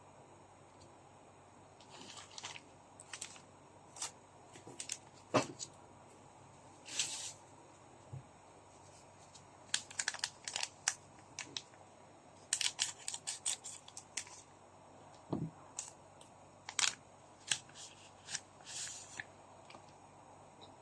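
Goddess Story trading card packs and cards being handled: irregular clusters of crinkles, short rips and clicks from foil pack wrappers and card stock, dying away near the end.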